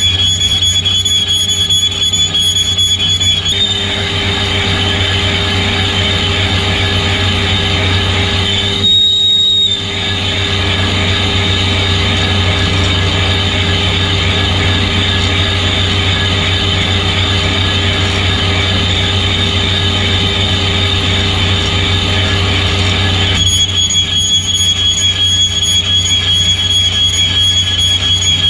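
Colchester lathe turning slowly while a boring tool cuts into a cast-iron brake disc, with a low hum under a steady high-pitched squeal. The squeal rises slightly in pitch about four seconds in and drops back near the end, with a brief break about nine seconds in.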